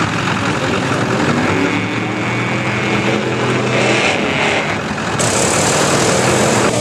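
Off-road pickup truck engine revving hard as the truck drives through mud, its pitch rising and falling with the throttle. The sound changes character about five seconds in.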